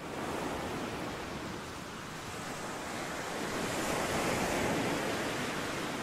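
Ambient sound effect of sea waves washing, a steady rushing wash of water.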